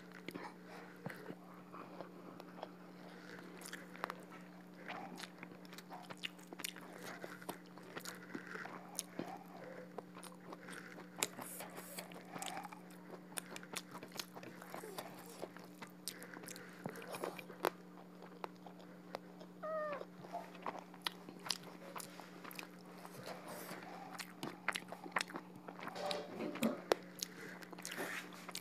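Close-miked mouth sounds of eating duck curry and rice by hand: wet chewing, biting and lip smacks in a steady stream of small clicks, over a steady low hum.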